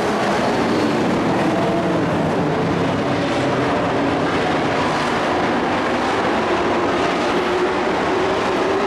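Several dirt-track racing pickup trucks' engines running together, loud and without a break, their overlapping engine notes rising and falling against each other as the trucks race by.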